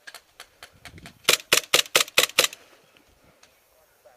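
Airsoft pistol firing a rapid string of about six shots, roughly five a second, each a sharp crack, with fainter clicks before it.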